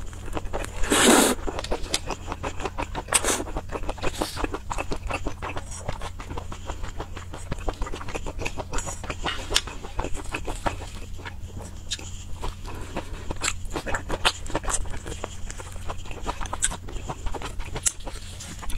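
Close-miked mukbang eating sounds: wet chewing, lip smacking and biting on sauce-soaked skewered food, many small clicks, with a louder sucking noise about a second in. A steady low hum runs underneath.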